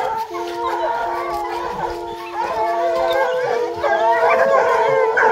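A pack of scent hounds baying and howling together, several voices overlapping. Through the first four seconds a steady held note sounds five times in a row, each about half a second long.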